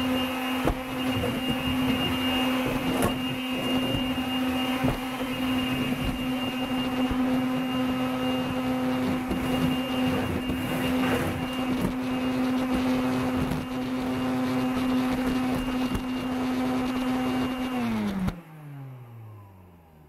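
Makita CL108FD 10.8 V cordless stick vacuum running with a steady motor hum and high whine, with a few light knocks. Near the end it is switched off and the motor winds down, its pitch falling away.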